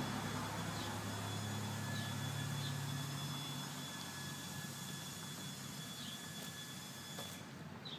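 Riding lawn mower engine idling steadily, a low even hum that grows fainter over the first few seconds. Faint short high chirps come now and then.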